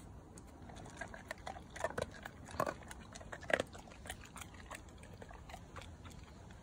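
A dog eating small dry treats: a run of short, sharp crunches for a few seconds, the loudest about two, two and a half and three and a half seconds in.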